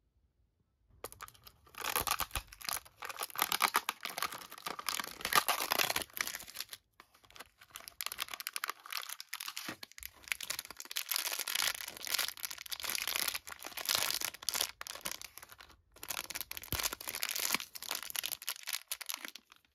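Toy packaging and a pink foil blind bag being handled and opened by hand: crinkling, rustling and tearing in stretches of a few seconds with short pauses, starting about a second in.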